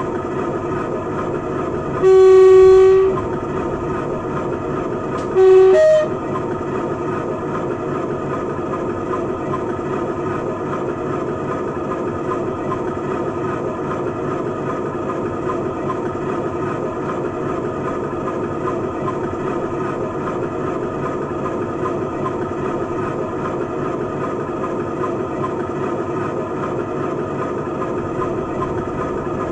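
DCC sound of a Heljan O gauge Class 47 model playing a recording of the Brush Type 4's Sulzer 12LDA28 diesel idling steadily through the model's speaker. The two-tone horn sounds twice, a single low note about two seconds in and a low-then-high call about five and a half seconds in.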